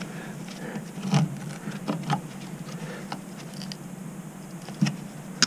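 Light clicks and knocks of pliers and gloved hands working metal line clips and brackets on the rear suspension, sharper about a second in, around two seconds in and twice near the end.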